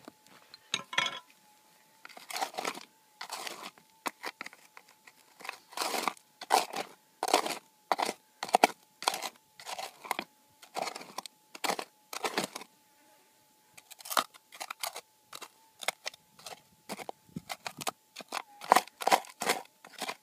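Small prospecting pick digging and scraping into gravelly dirt and stones, a run of short gritty scrapes and crunches, roughly one or two a second. A faint steady high tone runs underneath.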